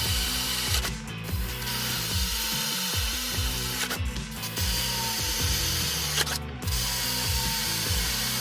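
Handheld power tool working on steel bodywork to free a welded bracket, running in spells with brief stops about one, four and six and a half seconds in. Background music plays underneath.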